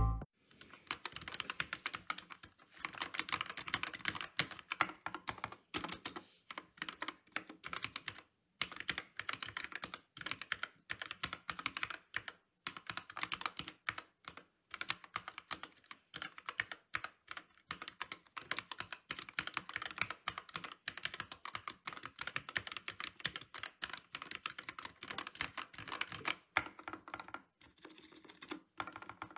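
Typing on a mechanical keyboard: fast, continuous keystroke clacks with a few brief pauses.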